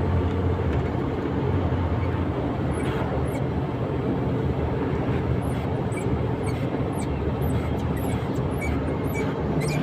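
KamAZ truck's diesel engine running steadily in the cab while driving, with short, high-pitched squeaks from the driver's seat coming irregularly from about three seconds in as the seat rides over bumps. The owner suspects the seat's rollers running in their rails.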